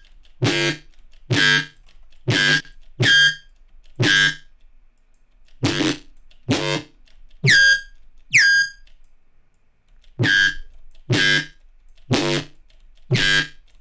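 Short, repeated stabs of a harsh, metallic electronic bass patch from the Serum software synthesizer, its filter cutoff modulated by an LFO: about fourteen notes, with a brief pause a little after the middle, and one note just before the pause with a high falling sweep.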